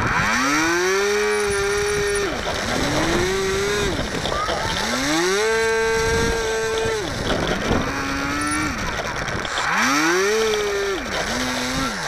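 Electric motor and propeller of a HobbyZone Firebird Delta Ray RC plane revving in six short throttle bursts, each whine rising quickly in pitch, holding, then dropping away, as the plane taxis on pavement.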